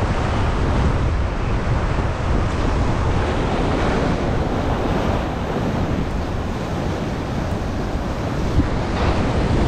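Ocean surf washing onto the shore, with wind buffeting the microphone as a steady low rumble.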